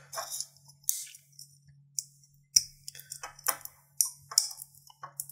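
Small plastic parts of a Smok Nord pod vape being handled and pressed together, battery assembly going into its casing: a string of light, irregular clicks, taps and scrapes. A faint steady low hum runs underneath.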